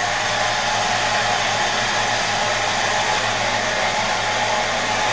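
Corded facility hair dryer running steadily while aimed at hair, a rushing airflow noise over a constant low hum. It is a weak, low-powered type.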